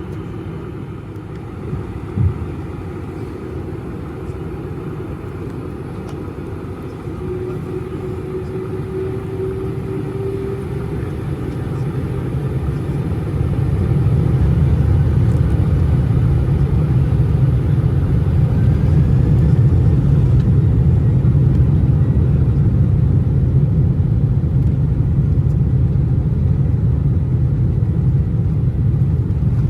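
Boeing 747-400 jet engines heard from inside the cabin, spooling up to takeoff power: a low rumble swells over the first half and then holds loud and steady as the takeoff roll gets under way. A single brief thump about two seconds in.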